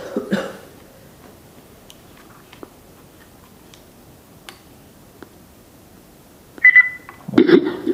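Handheld ghost-box speaker, mostly quiet apart from a few faint clicks. Near the end it gives a short high beep, then a loud burst of garbled sound with a brief voice-like fragment.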